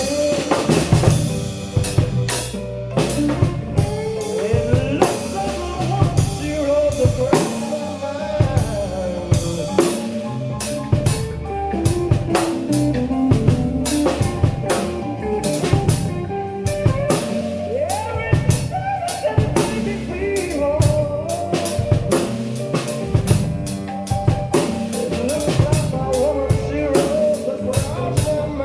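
Band music with a busy drum kit, snare and bass drum keeping a steady beat under sustained and bending melodic instrumental lines, with no singing.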